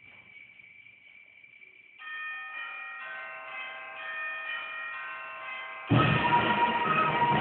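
School concert band: a near-silent pause with one faint lingering note, then soft held chord notes come in about two seconds in and shift pitch a few times. About six seconds in, the full band comes in suddenly and loudly.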